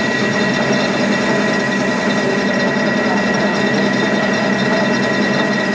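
Centre lathe running steadily while turning a metal workpiece held in its chuck: a constant machine hum with a thin, steady whine on top.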